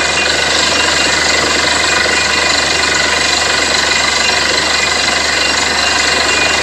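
Borewell drilling rig running, a loud, steady mechanical din of the rig's engine and drilling hammer.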